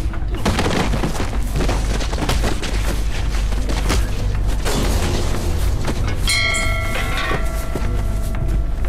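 Two men scuffling, with scattered thuds and knocks over a steady low rumble. About six seconds in, a brass ship's bell is struck once and rings on for about two seconds as it fades.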